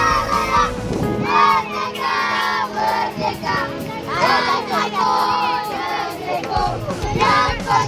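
A group of children singing together in unison, loud and a little ragged.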